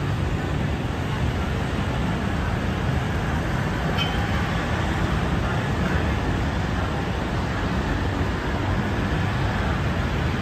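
Steady road traffic noise from slow, congested cars, vans and motorcycles, with a low engine hum underneath.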